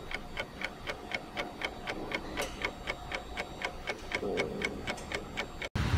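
Clock-ticking sound effect: fast, even ticks, about five a second, stopping abruptly near the end.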